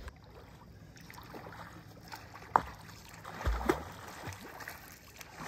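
A swimmer's front-crawl arm strokes splashing in a river: faint, uneven splashes, with a sharper one about two and a half seconds in.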